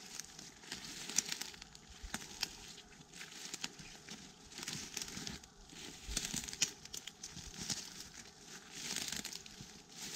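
Rustling and crackling of woodland debris being moved and handled, in irregular swells with scattered sharp clicks and snaps.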